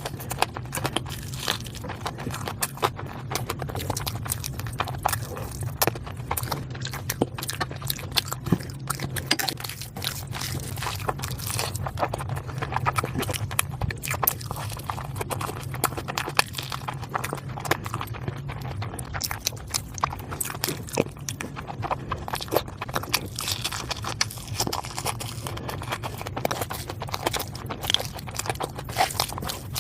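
Close-miked mukbang eating: a person chewing and biting food, with dense, irregular wet smacks and crunches, over a steady low hum.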